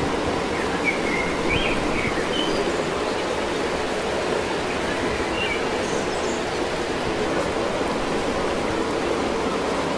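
A steady, even rushing noise, with a few faint high chirps about a second in and again around five to six seconds in.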